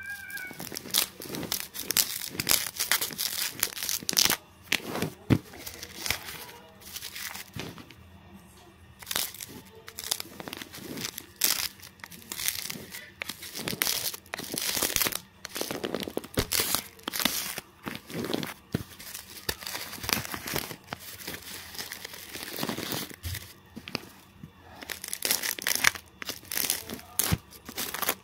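Clear plastic wrapping on a parcel being torn open and crumpled by hand: an irregular run of sharp crinkles and rips that keeps going.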